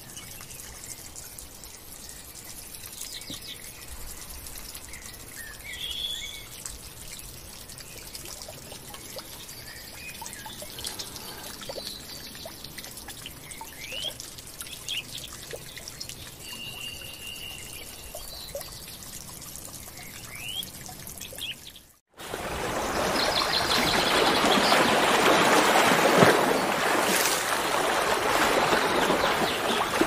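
Water trickling and splashing as it spills off a rock into a pond, with birds chirping now and then. About 22 s in the sound breaks off briefly and gives way to the louder, steady rush of a waterfall.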